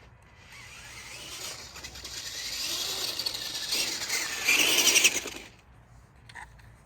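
Radio-controlled monster truck running, its motor and drivetrain giving a high whine that builds over a few seconds. The whine is loudest about four and a half to five seconds in, then cuts off suddenly about a second later.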